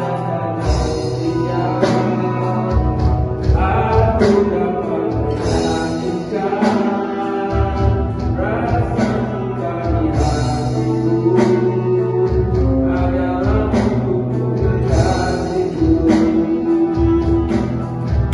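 A band playing a song, with a sung vocal over guitar and bass and cymbal crashes about every two seconds.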